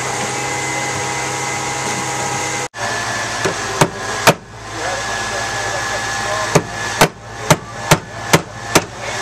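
An engine runs with a steady drone for the first few seconds, then gives way abruptly to hammer blows on the job site: two heavy blows, then after a short pause a run of six blows about half a second apart.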